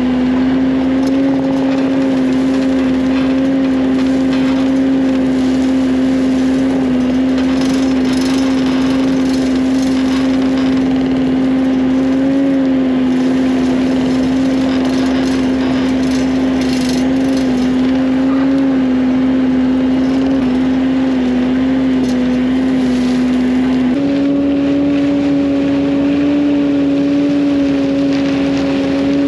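Heavy equipment engine running steadily at high speed, its pitch stepping up about 24 seconds in, with bits of clattering now and then.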